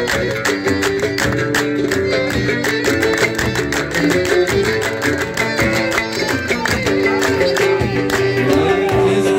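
Live traditional band music: a plucked oud and a violin play the melody over hand drums beating a fast, steady rhythm.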